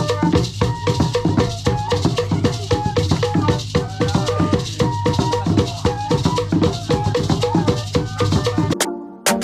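Music with a steady, busy beat of drums and shaken rattle-like percussion over a bass line. It switches abruptly to a sparser electronic beat just before the end.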